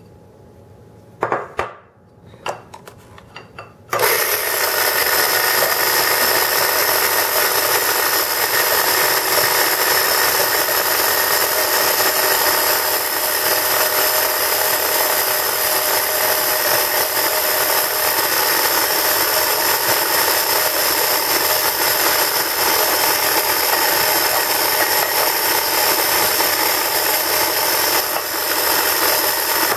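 A few short knocks, then about four seconds in an electric twin-beater stand mixer switches on and runs steadily with a whine, beating egg batter in a bowl.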